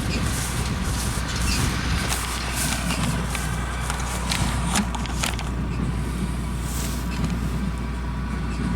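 Tractor engine idling steadily, with a scattering of short crunching footsteps or rustles in cut hay.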